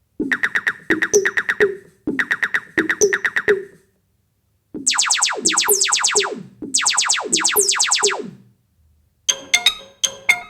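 Synthesized electronic sound effects: four short phrases of rapid pulses with falling pitch sweeps, separated by brief gaps, then a few short sharp stabs near the end.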